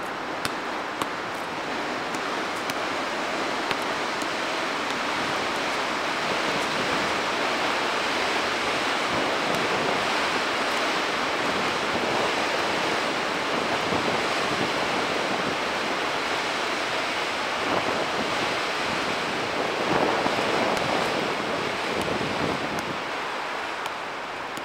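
Steady, even outdoor rushing noise with no distinct events, swelling slightly toward the middle.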